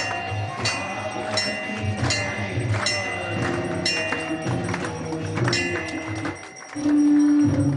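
Devotional temple music: metal percussion struck in a steady beat about every 0.7 seconds, with a drum beneath. Near the end a loud, steady held note starts.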